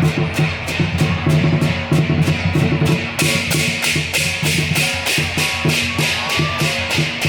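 Lion dance music: cymbals clashing about four times a second over a pounding drum, loud and steady.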